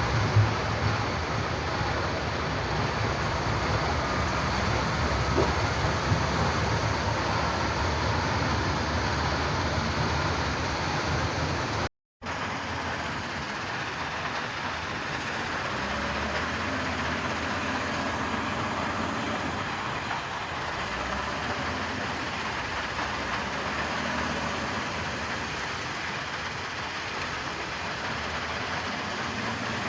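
Heavy diesel construction machinery running steadily, a dense continuous rumble, with a brief cut to silence about twelve seconds in.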